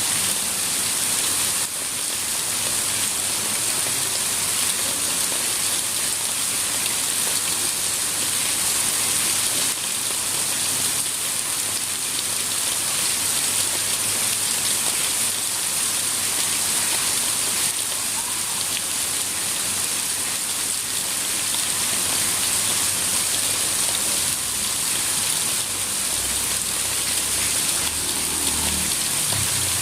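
Steady rain falling on surfaces, an even hiss of drops throughout.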